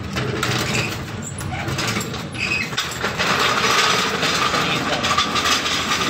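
Mitsubishi Mirage engine running, with a steady mechanical whir and fast, even ticking from the engine and its belt-driven pulleys.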